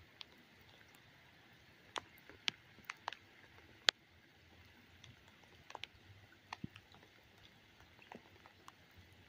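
Light rain falling, a faint steady hiss with irregular sharp drips landing one by one, a dozen or so.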